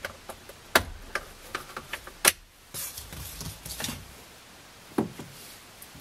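Sharp plastic clicks and small knocks from a pry tool working the lower trim piece out of a Honda Civic's steering wheel, with a stretch of scraping and rustling in the middle; the loudest click comes a little past two seconds in.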